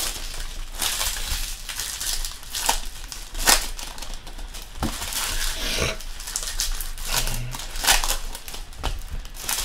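Foil trading-card pack wrappers crinkling and tearing as packs are ripped open by hand, with sharp crackles throughout.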